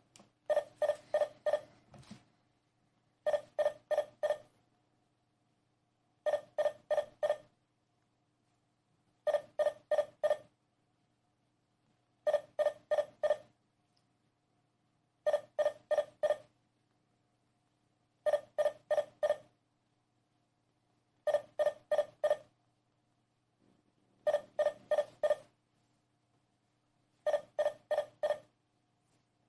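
Digoo DG-Hama alarm panel beeping: a short run of quick, high-pitched beeps repeated about every three seconds, with the system armed and set off.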